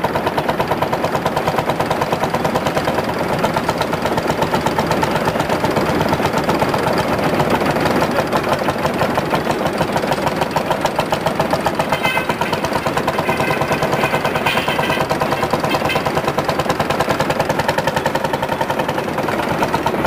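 Field Marshall tractor's single-cylinder two-stroke diesel engine running with a rapid, even beat while pulling a steel land roller across ploughed ground.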